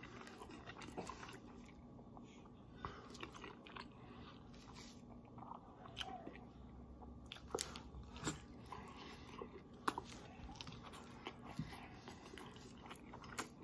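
A man eating fusilli pasta in pesto straight from the plate with his mouth: quiet chewing with scattered small clicks.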